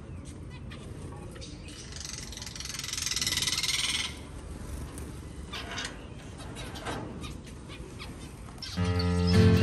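Zebra finches giving short, scattered calls, with a stretch of hiss about two to four seconds in. Acoustic guitar music comes in near the end.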